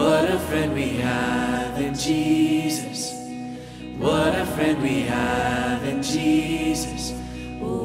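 Live worship band playing a slow song while a male vocalist sings long held notes. The music swells at the start and again about four seconds in.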